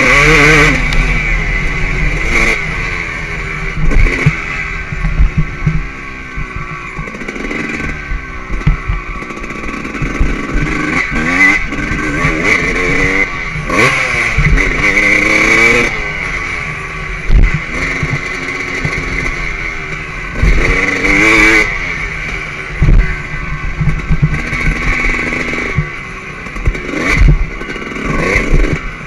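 2003 Suzuki RM 250's two-stroke single-cylinder engine revving up and dropping off again and again as the bike accelerates, shifts and slows around a dirt motocross track. A few sharp knocks come through from the bumps.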